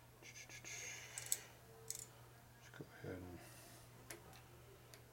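Faint handling noise from a dial indicator and its holder on a milling machine spindle, adjusted and turned by hand: light rubbing in the first second or so and a few small metal clicks, under a steady low hum. A brief low mutter comes about three seconds in.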